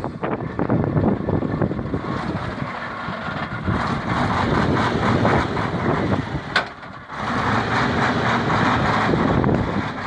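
KamAZ dump truck's diesel engine running, heard through a rushing, noisy rumble, with one sharp click about six and a half seconds in.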